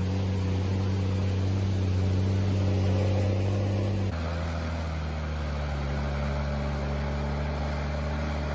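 Ag-Truck tractor's diesel engine running steadily under load as it pulls a stomper trailer through a flooded rice field. About four seconds in, its pitch drops abruptly to a lower steady drone.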